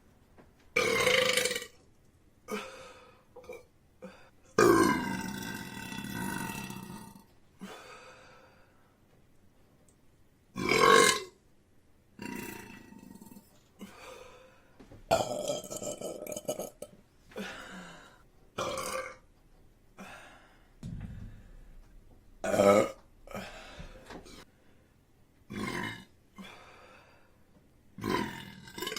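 A woman burping, deep belches one after another, about a dozen in all. One is drawn out for about two seconds, about five seconds in.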